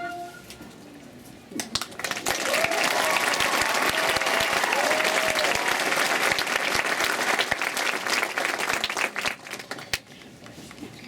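Audience applauding, with a few whoops of cheering, after a marching band's music ends; the clapping swells about two seconds in and dies away near the end.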